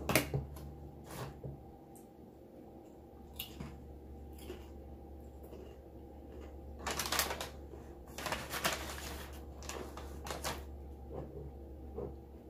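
Close-up eating sounds: tortilla chips being bitten and chewed, with scattered sharp crunches and two longer crackly crunching stretches about seven and eight and a half seconds in.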